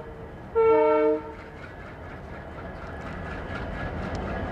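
ALCO diesel-electric locomotive sounding one short horn blast about half a second in. Then its engine chugs as it pulls the train away and picks up speed, growing steadily louder.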